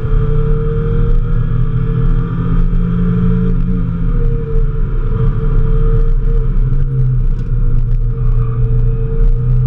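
Mazda Miata's four-cylinder engine running hard under load, heard inside the cabin. Its note changes about four seconds in and settles again near the end.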